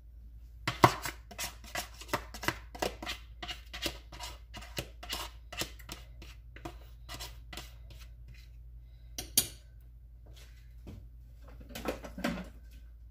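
A utensil clicking quickly against a stainless pot, about three strokes a second for some seven seconds, as eggs are beaten in with the sugar. A single sharp clink comes about nine seconds in, and a few softer knocks near the end.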